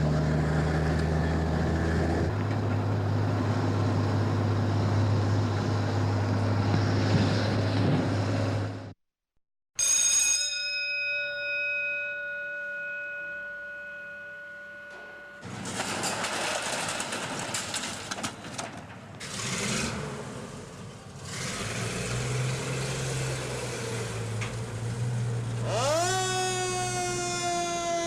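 A heavy vehicle engine runs steadily, then cuts off. A single metallic ring follows and fades over about five seconds, then engine noise returns. Near the end a fire engine siren winds up into a wail.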